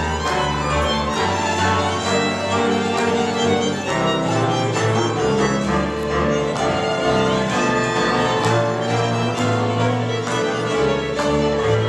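Folk string band playing an instrumental passage: fiddles carry the tune over the struck notes of a cimbalom and a walking double bass line.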